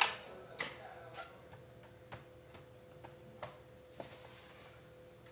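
About six sharp clicks and light knocks at irregular spacing from laptop parts being handled, the first the loudest, over a faint steady hum.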